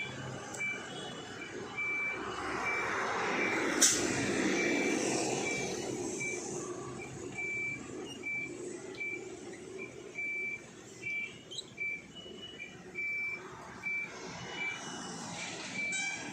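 A truck's reversing alarm beeping steadily, a short high beep a little faster than once a second, over engine and traffic noise that swells and fades in the first few seconds. There is a sharp click about four seconds in.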